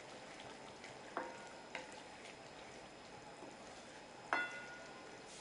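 A metal utensil strikes a cooking pot three times, about a second in, again shortly after, and near the end, each strike ringing briefly, over a faint steady sizzle from the cooking chicken.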